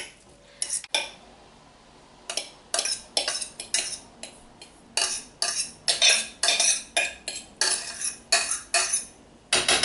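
Metal spoon knocking and scraping against a metal saucepan as cooked bulgur wheat is scraped out into a frying pan. The sharp clinks come about three a second, after a couple of clinks near the start.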